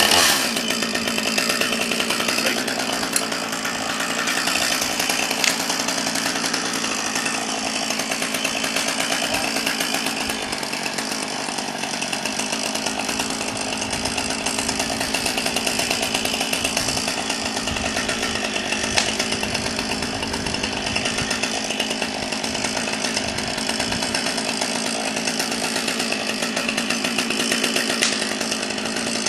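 Chainsaw running steadily without a break, its engine note holding at an even pitch.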